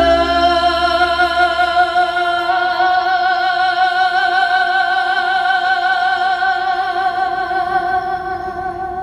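A woman singing one long note with vibrato into a microphone over the amplified sound system, held without a break. The backing accompaniment beneath her thins away after a couple of seconds, leaving the voice almost alone.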